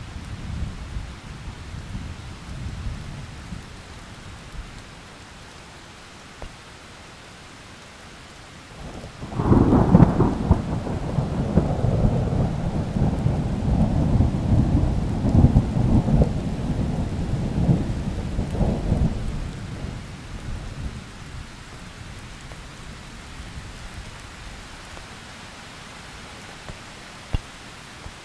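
Thunderstorm: steady rain falling, with a sudden thunderclap about a third of the way in that rolls on as rumbling thunder for about ten seconds before fading back to the rain. A low rumble of earlier thunder dies away at the start.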